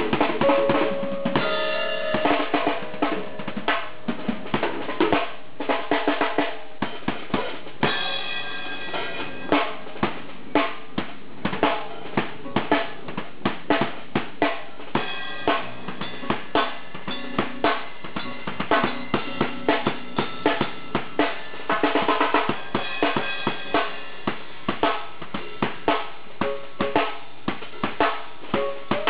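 Pearl drum kit played solo: a steady beat of kick drum, snare and cymbals, with fast runs of rapid strokes about two, eight and twenty-two seconds in.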